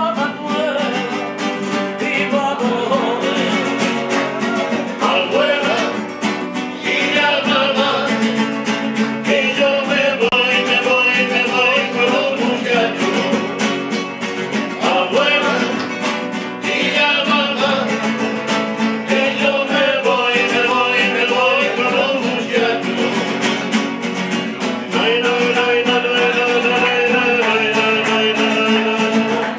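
Several Spanish acoustic guitars strummed and played together in a live group performance of Spanish music, with continuous chord strumming.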